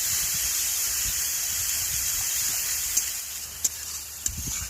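Ground onion paste hitting hot oil and sizzling: a loud, steady hiss that eases after about three seconds into scattered pops and crackles of spattering oil.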